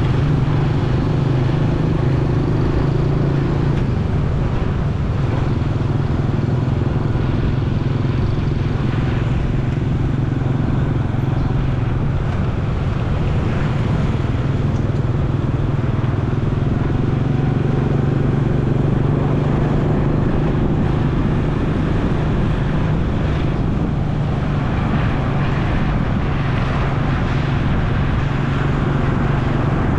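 Motorcycle engine running steadily while riding, under a constant rush of road noise.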